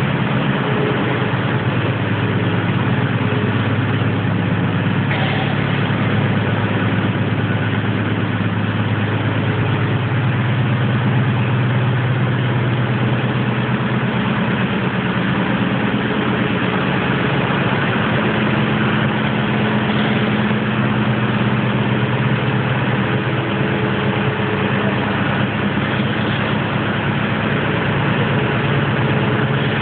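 Scissor lift's power unit running steadily as the platform rises, a constant low mechanical drone whose pitch shifts slightly a few times.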